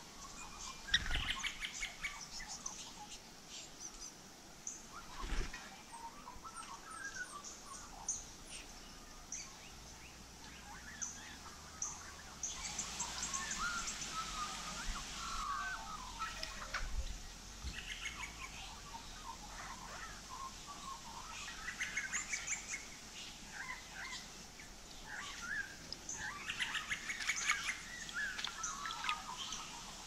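Several small birds chirping and calling, short scattered chirps overlapping one another, with a few dull low thumps in between.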